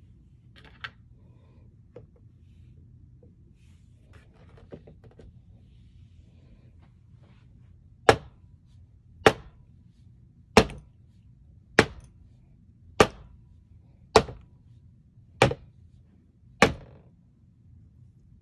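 A few light clicks and handling rustles, then eight sharp thuds about 1.2 s apart as rolled polymer clay tentacles are set down one after another on the work surface.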